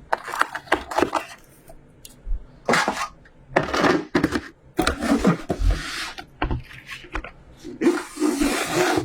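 Hands handling hard objects and packaging: irregular clicks, light knocks and rustling or scraping, with a longer rustle about five to six seconds in and another near the end.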